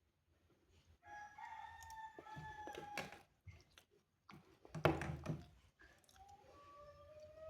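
A rooster crowing: one long crow starting about a second in, and another crow beginning near the end. Between them, about five seconds in, comes a short, loud clatter.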